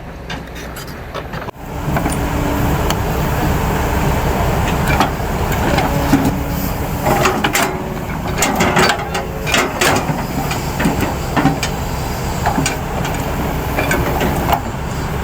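An engine running steadily under frequent sharp metal clanks and knocks, typical of work on fitting a crawler track onto an excavator. The engine noise starts abruptly about a second and a half in.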